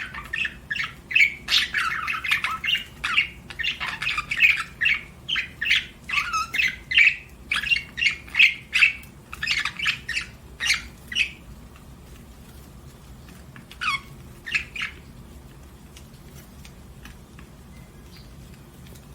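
Budgerigar chirping: a rapid, busy run of short chirps for about eleven seconds, two more chirps a few seconds later, then it falls quiet over a faint steady background hum.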